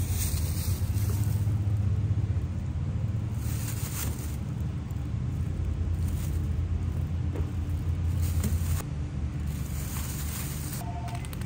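A low rumble that stops suddenly about nine seconds in. A thin plastic produce bag crinkles a few times as tomatoes are dropped into it.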